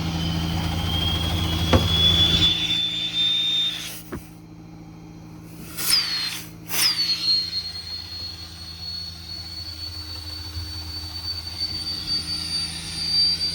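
Truck-mounted hydraulic air compressor running, a high steady whine over the low hum of the idling 6.7 Powerstroke diesel. The whine drops off about four seconds in, then comes back with two sharp falling sweeps around six and seven seconds and holds steady again.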